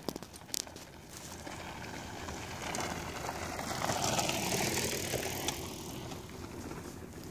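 Mountain bike rolling down a loose dirt-and-gravel track, its tyre noise growing as it approaches, loudest as it passes close about four seconds in, then fading away.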